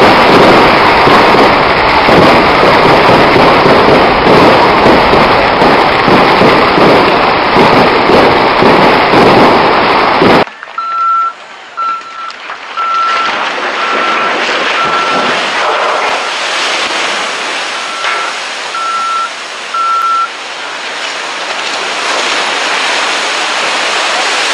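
A long run of firecrackers crackling densely, which cuts off suddenly about ten seconds in. Then a series of about eight short electronic warning beeps, all at the same pitch, sounds over a steady rushing noise that grows louder near the end.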